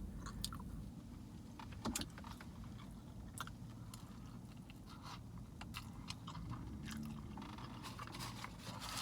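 A person chewing a mouthful of burrito close to the microphone, with short, scattered wet mouth clicks.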